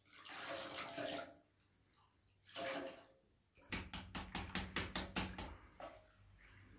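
Liquid poured from a small metal bowl into flour in a large aluminium basin, splashing twice. Then a quick run of about ten knocks, roughly six a second, as a wooden-framed flour sieve is shaken and tapped.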